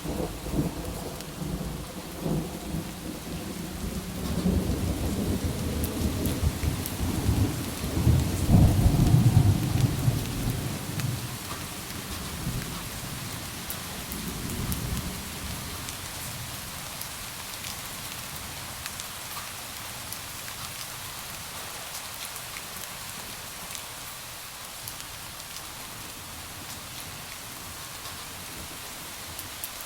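Steady rain with scattered drop ticks, and a long rolling thunder rumble that builds over the first several seconds, is loudest about nine seconds in, and dies away by about sixteen seconds, leaving the rain alone.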